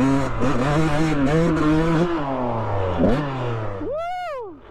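Dirt bike engine revving hard and shifting up through the gears on the run-up to a jump. About four seconds in it gives one quick rev that rises and falls, with the sound dropping away, as the bike is in the air.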